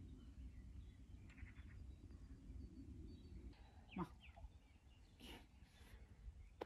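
Near silence: a faint, steady low rumble, broken about four seconds in by one short sound that falls in pitch.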